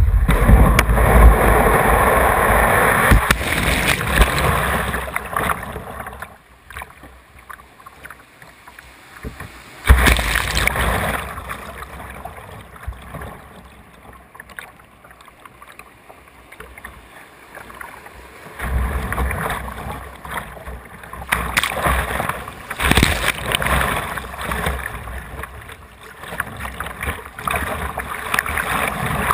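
Whitewater rushing and splashing against the bow of a kayak, picked up by a camera mounted on the bow, coming in surges with a sudden loud splash about ten seconds in and a long stretch of rough water in the second half.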